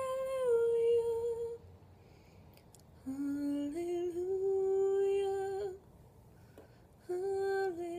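A woman singing unaccompanied, long held notes on "hallelujah": one phrase fades out about a second and a half in, a second rises in steps from about three seconds in to nearly six, and a third starts near the end.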